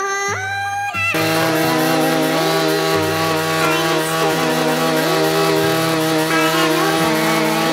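Derbi 50 cc two-stroke moped engine revved at full throttle. It climbs sharply in pitch in the first second, then is held at high revs with the pitch wavering slightly.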